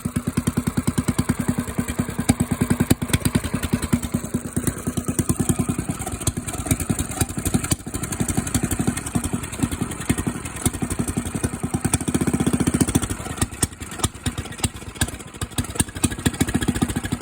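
Diesel engine running through a newly fitted 2-inch exhaust, very loud, with a steady rapid exhaust pulse. It revs up briefly about twelve seconds in, then settles back.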